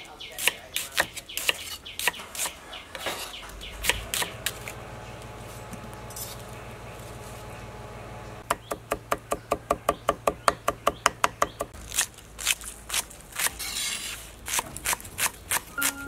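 Kitchen knife chopping vegetables on a wooden cutting board. Irregular chops come first, then a quick, even run of about six chops a second near the middle, then slower scattered chops.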